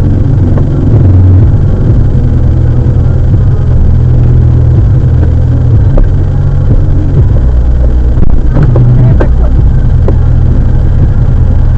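A vehicle's engine idling while stopped in traffic, heard as a loud, steady low rumble, with a few short, sharper knocks or clicks about eight to nine seconds in.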